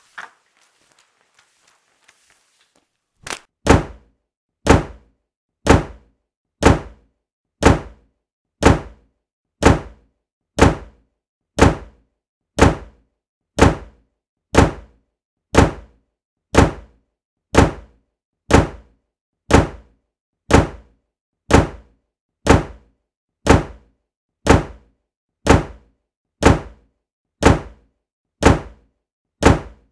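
A steady series of thunks at about one a second, each a light knock followed at once by a heavier one, starting about three seconds in.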